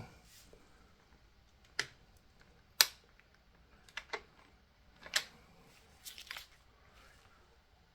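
A handful of sharp, irregular metal clicks and clinks from hand tools being worked on connecting rod cap bolts of an engine block. The loudest click is about three seconds in.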